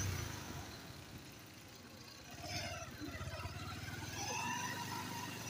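Motorcycle engine running at low speed on a rough gravel road. It eases off about half a second in and picks up again about two and a half seconds in.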